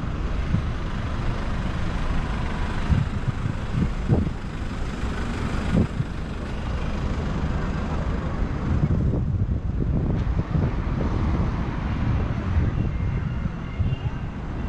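City street ambience: steady road traffic noise with a deep low rumble and a few short thumps.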